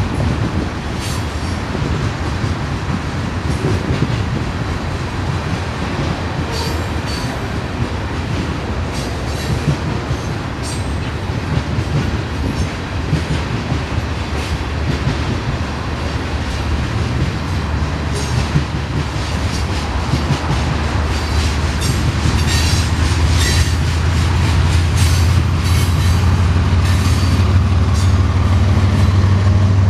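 Freight cars rolling past with steel wheels clacking and squealing on the track, then the diesel engines of BNSF locomotives droning louder from about halfway through as they come close.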